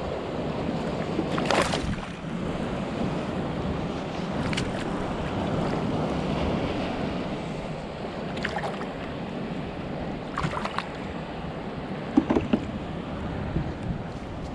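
Steady wind and water noise around a kayak, with a few brief splashes and knocks as a tautog is gripped at the surface and lifted from the water by hand. The sharpest come about twelve seconds in.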